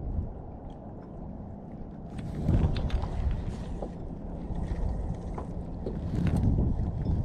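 Wind buffeting the microphone in a low rumble that swells twice, with a few light clicks and knocks scattered through it.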